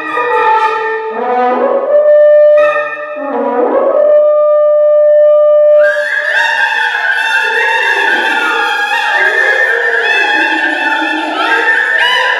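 Woodwind quintet (flute, oboe, clarinet, bassoon and French horn) playing contemporary classical music. A single note is held for a few seconds, then about halfway through all the instruments come in loudly together with rising swoops.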